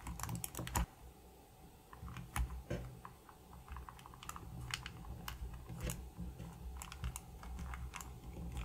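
Fingers handling a plastic computer mouse and pressing its stick-on glide pads onto the underside: scattered, irregular small clicks and taps of fingertips and nails on plastic, over a low rubbing rumble.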